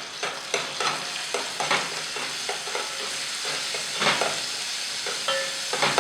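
Crushed garlic, rampe (pandan) and curry leaves sizzling in hot oil with a steady hiss, while a spoon stirs and scrapes the pan in irregular clicks; a short squeaky scrape comes a little after five seconds.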